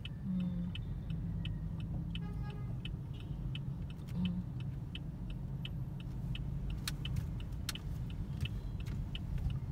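Inside a car's cabin in slow traffic: steady low engine and road rumble, with the turn-signal indicator ticking evenly, about two and a half ticks a second.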